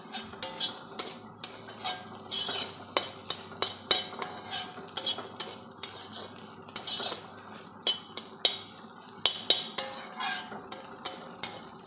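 Metal spatula scraping and clacking against a pan, stirring soybeans as they fry, with a few irregular strokes each second. Frying sizzle runs underneath.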